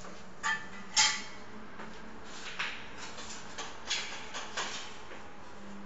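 Several sharp clinks and knocks of small hard objects, the loudest about a second in with a brief ringing, over a steady low hum.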